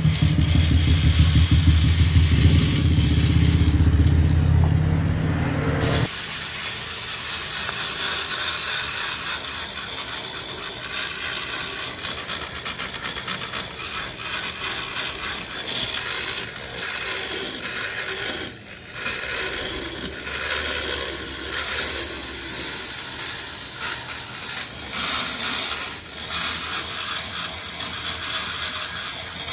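A motorcycle engine idles with a low rumble for about the first six seconds, then stops abruptly. A steady hissing, scraping grind follows, rising and falling: a die grinder porting a two-stroke cylinder block.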